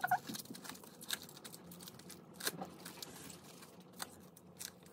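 Plastic cling wrap crinkling as it is wrapped around an ear of corn, a run of small irregular crackles.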